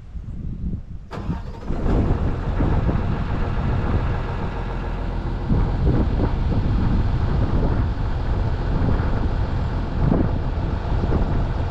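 Kobelco 210 excavator's diesel engine cranking and catching about a second and a half in, then running steadily.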